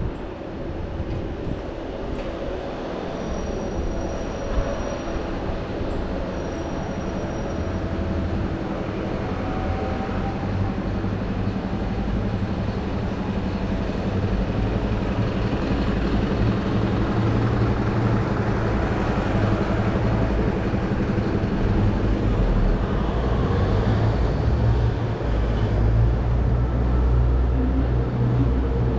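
Street traffic: a steady low engine rumble from vehicles, slowly growing louder.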